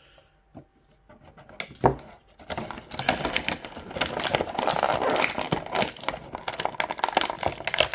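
Plastic packaging of a boxed action figure being handled. A few scattered clicks about a second and a half in, then a dense, continuous crinkling and clicking from about two and a half seconds on.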